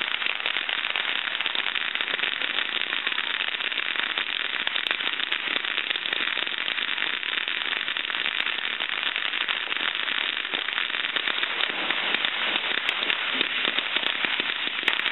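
Ground fountain firework spraying sparks, with a dense, steady crackle.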